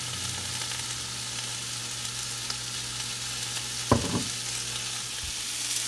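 Cooking oil sizzling in a hot frying pan on the stove: a steady high hiss, with a short thump about four seconds in.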